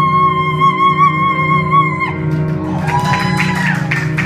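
A woman's voice holds a sung high C with slight vibrato over an instrumental accompaniment, stopping about two seconds in. Clapping follows near the end.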